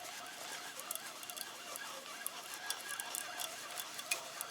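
Steady hiss of strong wind and blowing snow, with irregular small clicks and a few faint squeaky tones over it.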